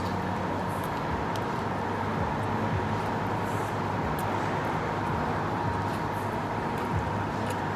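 Steady background hum and hiss with a thin constant tone, a few faint sharp ticks over it as food is picked apart by hand on a metal tray.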